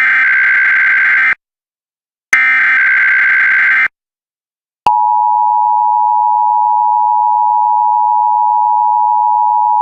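Emergency Alert System SAME header: the last two of its three digital data bursts, each about a second and a half long with a one-second gap between. About five seconds in, the steady two-tone EAS attention signal starts and holds.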